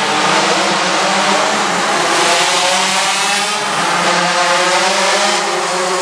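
Pocket bike's small engine revving hard, its pitch rising and falling again and again.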